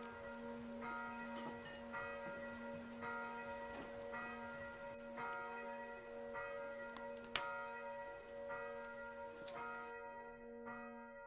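Church bells ringing, a stroke about every three-quarters of a second. Under them a wood fire hisses with a couple of sharp pops, and the fire sound stops about ten seconds in while the bells go on.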